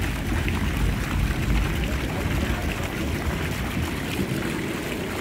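Small fountain jets splashing steadily into a shallow basin, with wind rumbling on the microphone.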